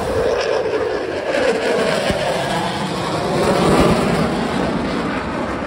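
Blue Angels F/A-18 Super Hornet jet passing by overhead: a broad jet roar with a sweeping, phasing tone that swells to its loudest about four seconds in.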